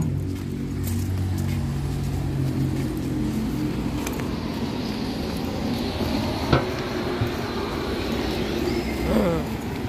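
Street traffic: a passing car's engine hum and tyre noise, with a faint high whine in the second half. There is a sharp click about six and a half seconds in and a brief falling squeal near the end.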